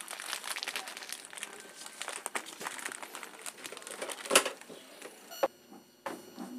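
Plastic bags crinkling and rustling as packed goods are handled, with one sharp knock about four seconds in. The crinkling stops after about five seconds, leaving a few separate clicks.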